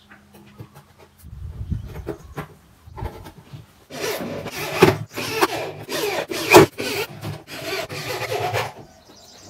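Corded electric drill driving screws through a connector plate into a speaker cabinet, a grinding whir in several uneven bursts starting about four seconds in, with a sharp crack about two and a half seconds later. Lighter knocks and clicks of handling come before it.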